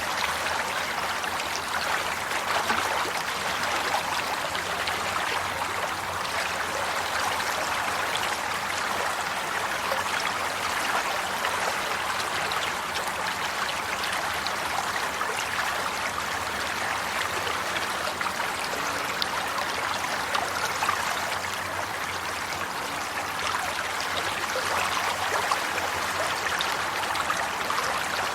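A stream of water flowing and splashing steadily, with fine bubbling and trickling detail.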